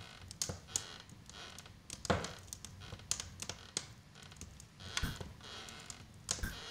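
Irregular light clicks and taps in a quiet room, with one louder knock about two seconds in.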